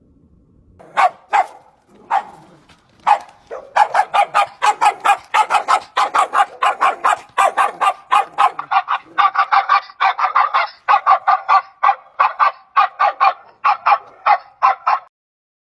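An animal calling over and over in short honk-like calls. A few spaced calls about a second in become a rapid run of several a second from about three and a half seconds, stopping just before the end.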